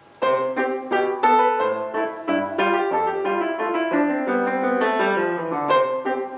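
Hailun HG 178 grand piano (5'10") being played, a classical piece starting just after the beginning with distinct struck notes and chords in a steady, moderate rhythm.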